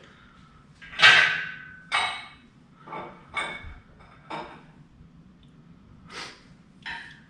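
Irregular metal clanks and knocks, about seven in all, from a motorcycle engine being lowered into its frame. The loudest comes about a second in and rings briefly.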